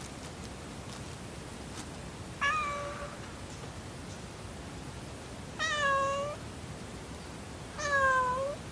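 Domestic cat meowing three times, each meow about half a second long; the second and third are louder and drop in pitch at the end.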